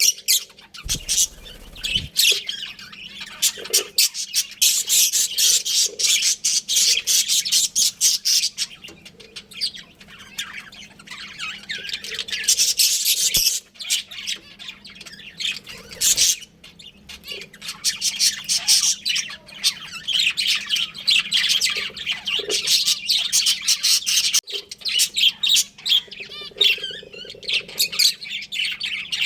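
Budgerigars chirping and chattering, a dense run of quick, high chirps and squawks with only brief lulls.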